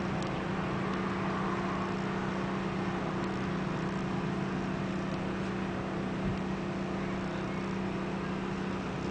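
Steady low mechanical hum, one even drone that does not change, with a single soft low bump a little after six seconds in.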